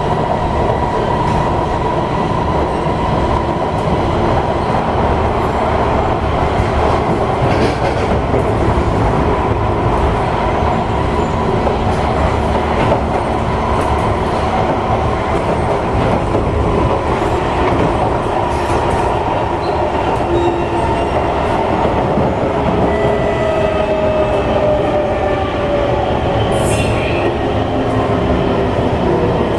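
Cabin noise of an SMRT C151 metro train in motion: steady wheel and running noise on the track, with a whine sliding down in pitch near the end.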